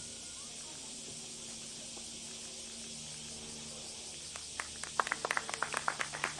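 Steady high drone of summer insects, most likely cicadas. From about four seconds in, scattered hand-clapping from a small audience starts and quickens.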